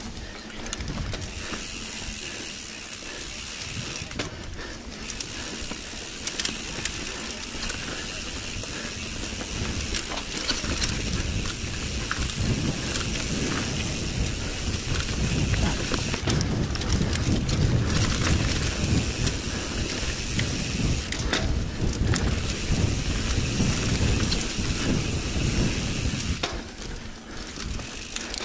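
Mountain bike riding down a dirt singletrack: the rear freehub ratchet buzzes with fast clicking while the bike coasts, dropping out briefly three or four times, over a low rumble of tyres on the trail that gets louder about ten seconds in.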